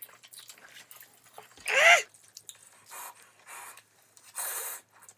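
Eating sounds: cold naengmyeon broth drunk from a bowl, with short breathy noises. About two seconds in, one short, loud, high whine that rises in pitch.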